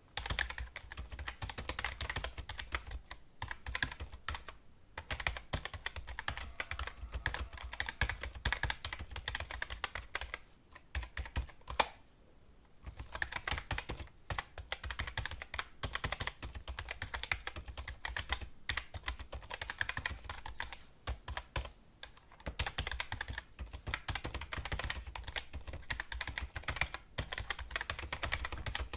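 Typing on a computer keyboard: rapid key clicks in long runs, broken by a few brief pauses.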